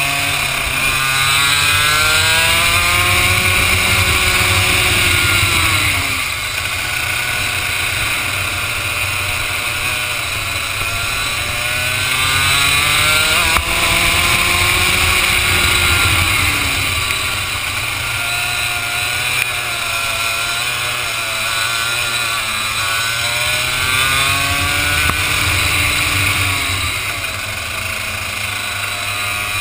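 Vortex ROK 125cc two-stroke single-cylinder kart engine, heard onboard from a helmet camera, under power on a racing lap. Its pitch climbs three times as it accelerates and falls away each time as the throttle comes off.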